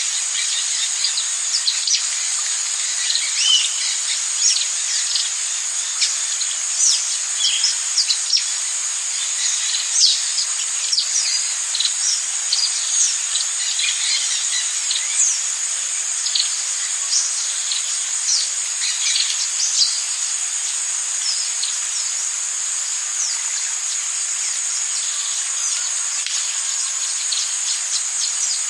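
Tropical rainforest ambience: a steady, high-pitched drone of insects under many short, quick bird chirps. The chirps are busiest through the first two-thirds and thin out near the end.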